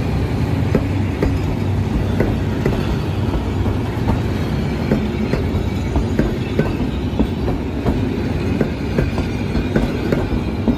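Passenger train coaches rolling past close by: a steady rumble of wheels on the rails with repeated sharp clacks as the wheels cross rail joints.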